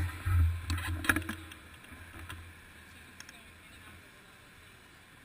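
Muffled low rumble of road traffic, loudest in the first second and a half, with a few sharp clicks about a second in, then settling to a quieter steady background.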